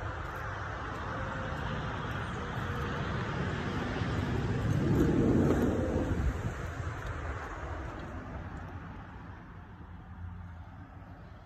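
Road traffic noise, with one vehicle passing that swells to its loudest about five seconds in and then fades away.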